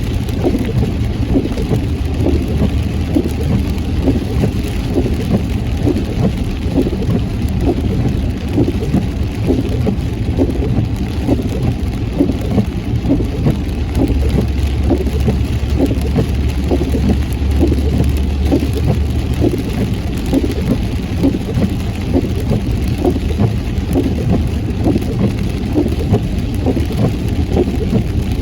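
Heavy rain pattering on a moving car over its steady road and engine noise. A low hum grows stronger from about halfway through for roughly five seconds.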